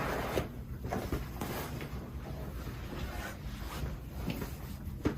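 Soft rustling and shifting of a patient on a chiropractic treatment table while being positioned, with a light knock near the end.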